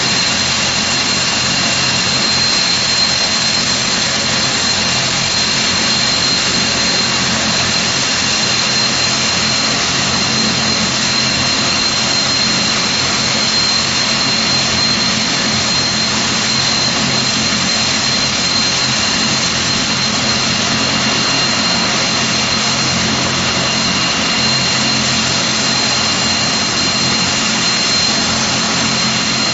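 Rolls-Royce Tyne turboprop engines of a Vickers Vanguard airliner running steadily in a ground run, a constant high whine over a low drone.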